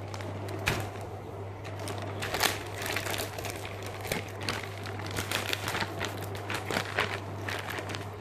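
Clear plastic bag crinkling and rustling in irregular crackles as it is handled and opened, over a steady low hum.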